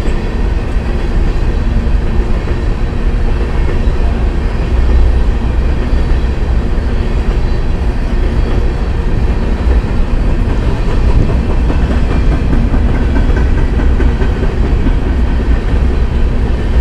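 Freight train of open-top hopper cars rolling past at close range: a loud, steady rumble of steel wheels on the rails.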